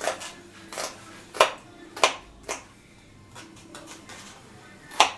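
Kitchen dishes and utensils clinking and knocking: about six sharp strikes spread over a few seconds, the loudest about a second and a half in and near the end.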